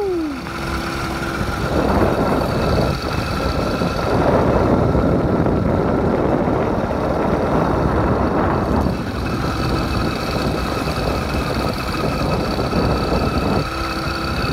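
80cc motorized bike engine running steadily under way, with a steady whine, mixed with rushing noise from wind and the ride that is heavier for a while in the middle.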